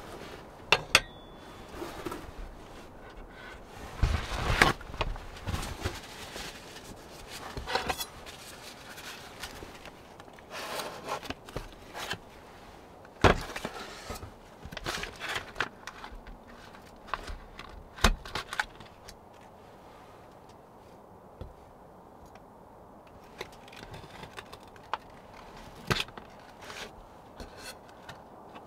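Objects being handled: irregular clinks, knocks and scraping, busiest through the first two thirds, then a quieter stretch with a few scattered clicks.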